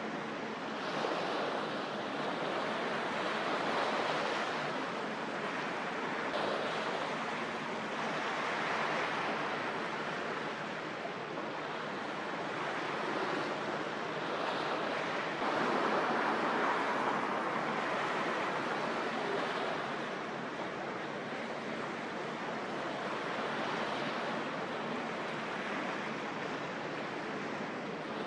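Steady rushing noise of harbour waves and wind, swelling and easing every few seconds.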